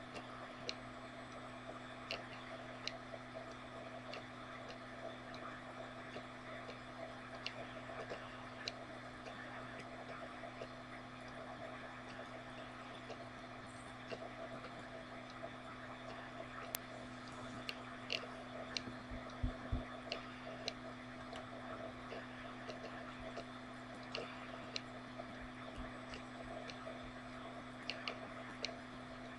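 Steady low electrical hum with faint background noise, broken by scattered sharp clicks at irregular intervals, a few louder ones past the middle.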